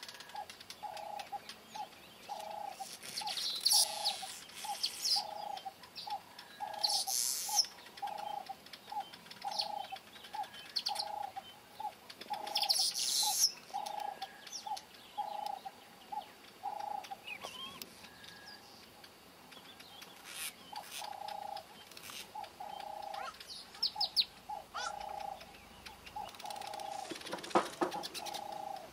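Birdsong: loud bursts of high, buzzy chattering, typical of village weavers, over a lower bird call repeated in a steady rhythm of about two notes a second, short and long notes alternating, with a brief pause around the middle.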